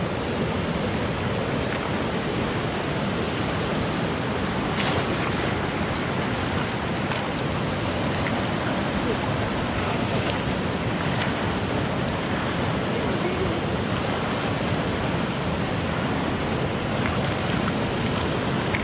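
Steady rush of a river flowing over rocks, with a few faint clicks.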